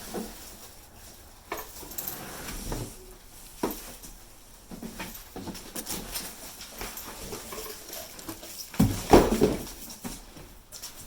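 Cardboard and packing material of the grill's box being handled: irregular rustles, scrapes and knocks, with the loudest bump about nine seconds in.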